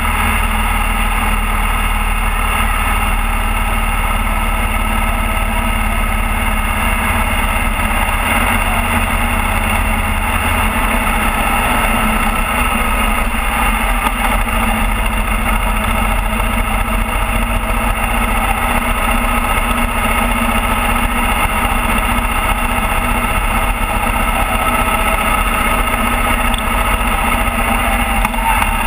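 Motorcycle engine running steadily at riding speed, mixed with wind and road noise on the bike-mounted camera. The low engine rumble shifts slightly about ten seconds in.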